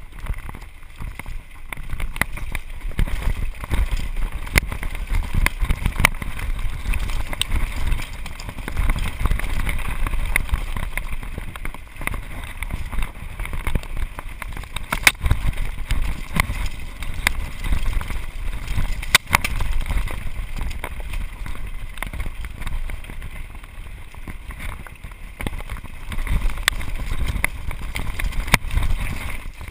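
Mountain bike riding down a rough, rocky singletrack: a constant low rumble of wind on the microphone and tyres on dirt, with many sharp clicks and rattles as the bike jolts over rocks.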